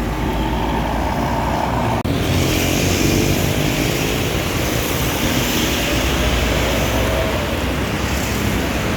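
Loud road noise of a passing bus, with engine rumble and tyre hiss. It breaks off for an instant about two seconds in and comes back hissier.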